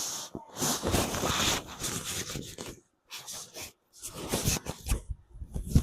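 A microphone inside a clothes pocket, fabric rubbing and rustling against it in loud, irregular bursts broken by brief dropouts.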